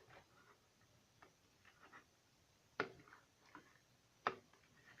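Faint wet clicks and small pops from sticky clear slime being worked by hand, with two sharper clicks, one near three seconds in and another about a second and a half later.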